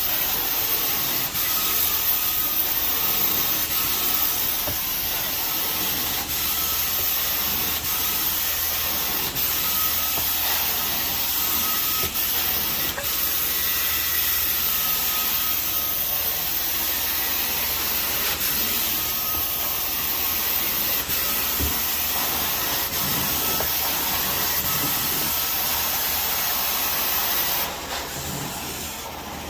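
A four-jet titanium carpet-cleaning wand hissing steadily as it sprays and sucks water back up through the carpet, with faint ticks about every second and a half. The hiss drops briefly near the end.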